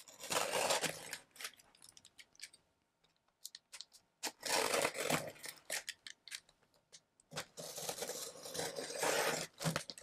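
Headphone shipping box being opened by hand: cardboard and packing material handled in three noisy bursts, at the start, about four seconds in and near the end, with scattered small clicks between.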